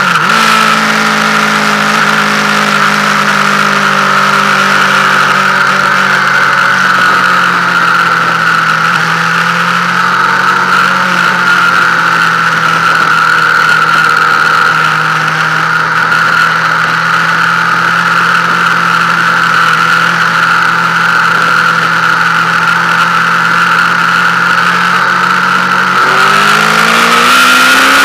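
Yamaha FZ8 motorcycle's inline-four engine running steadily at road speed. Its pitch dips slightly in the first seconds as it slows, then rises sharply about two seconds before the end as the rider opens the throttle to accelerate.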